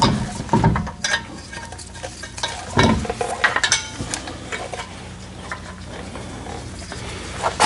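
Small metallic clinks and scraping as lug nuts are handled and threaded onto the wheel studs by hand, with a few sharp clicks about a second in and again around three to four seconds in.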